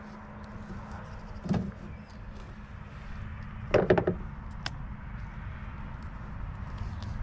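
Handling noise of cutting and breaking a dead rooster's leg at the joint on a plastic truck bed liner: a light knock about a second and a half in, then a louder, brief clatter around four seconds in as the knife goes down onto the liner.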